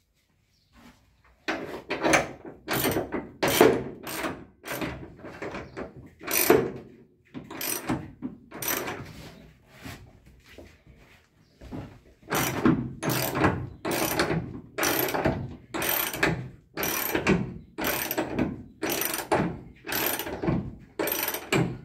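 Ratchet wrench being worked back and forth to tighten a seat-belt anchor bolt into the van's body, clicking in a steady rhythm of about one and a half strokes a second. It pauses for a couple of seconds near the middle, then starts again.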